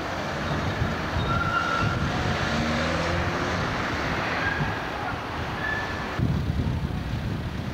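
Street traffic with trams and motor vehicles passing: a steady low rumble and hiss with a few brief faint high squeals. The background noise changes abruptly about six seconds in.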